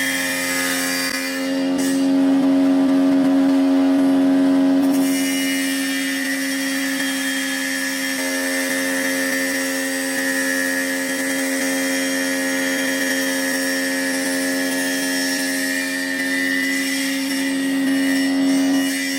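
A power tool's electric motor running steadily at constant speed, a continuous hum with a whine above it, a little louder a few seconds in.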